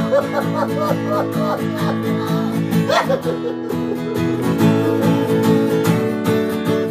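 Steel-string acoustic guitar strummed in a steady rhythm, played solo without singing.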